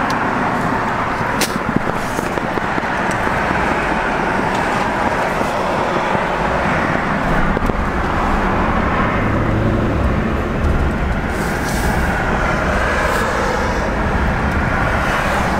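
Highway road and wind noise coming in through the open driver's window of a 2003 Ford F-150 pickup on the move: a steady rush, with a deeper rumble coming in about six seconds in.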